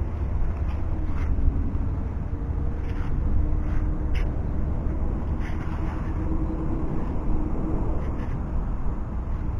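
Steady low outdoor rumble with a faint hum held for most of the time, and a few soft clicks scattered through it.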